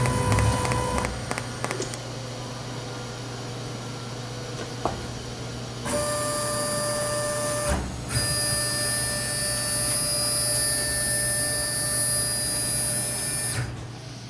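CNC-driven TIG welding torch: the arc buzzes steadily for about the first second, then goes out. From about six seconds in, the converted CNC machine's stepper motors whine steadily as the gantry moves, breaking off briefly near eight seconds and stopping shortly before the end.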